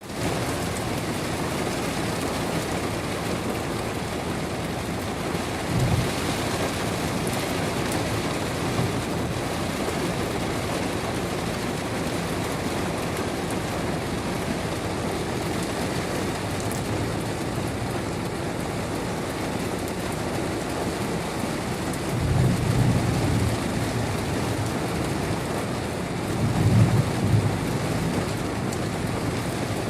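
Heavy rain falling steadily, an even hiss throughout. Low rumbles swell up about six seconds in, again from about 22 to 24 seconds, and most strongly around 27 seconds.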